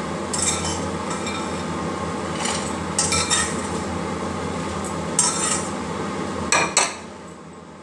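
Metal spoon scraping and clinking against the inside of a pressure cooker as fried urad dal badi are scooped out. About half a dozen sharp clatters sound over a steady hiss, the loudest a quick pair near the end, after which the hiss drops away.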